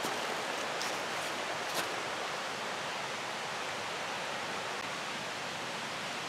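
Steady rushing of a rain-swollen creek, an even hiss of flowing water. A few faint ticks sound in the first two seconds.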